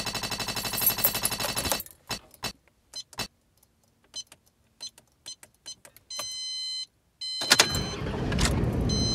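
Rapid ticking, a counter sound effect, that slows to scattered clicks and stops. Then a car's electronic chime, and a Toyota's engine starting about seven and a half seconds in and running on, with the chime sounding again near the end.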